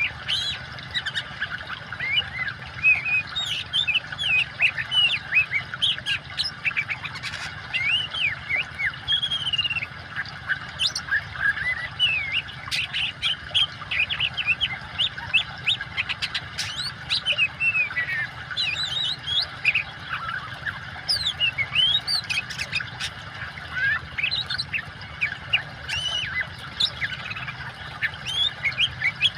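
Oriental magpie-robin singing a long, varied song of rapid chirps, whistles and sweeping notes, almost without pause, over a steady background hiss of running water.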